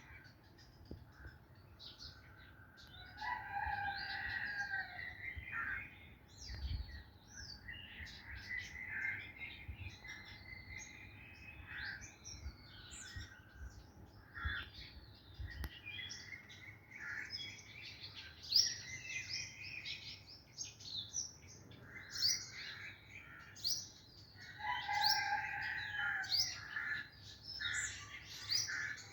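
Several birds chirping and calling over one another, with one bird's lower warbling phrase heard twice, about three seconds in and again near the end.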